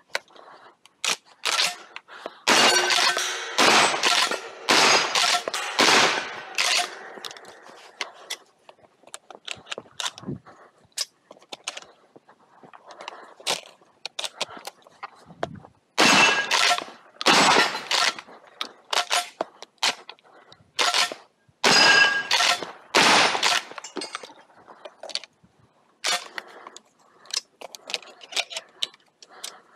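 12-gauge lever-action shotgun fired in three quick strings of shots, roughly a shot every half second to a second, with sharp metallic clicks of the gun being worked and reloaded in between.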